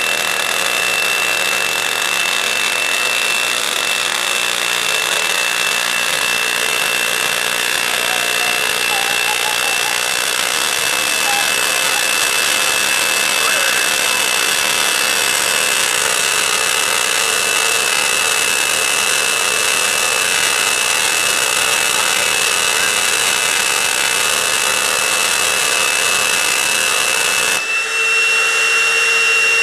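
6-inch Tesla coil powered from a 12 kV, 90 mA supply, sparking continuously as a loud steady buzz with a thin high whine running through it. It breaks off briefly near the end, then carries on with a slightly changed tone.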